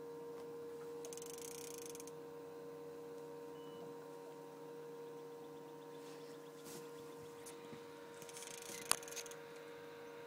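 A steady, even-pitched hum, with two brief hissing bursts and one sharp click about nine seconds in.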